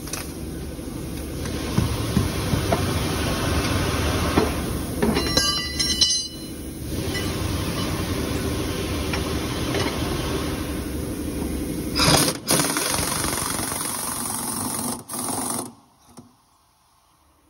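A steel U-bolt on the truck's front spring being cut off: a steady, loud cutting noise with a brief shrill metallic screech about five seconds in and a sharp crack about twelve seconds in. The cutting stops suddenly shortly before the end.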